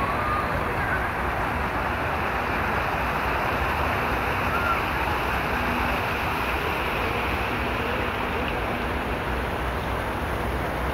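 Steady rushing splash of a fountain's water jets falling into its pool.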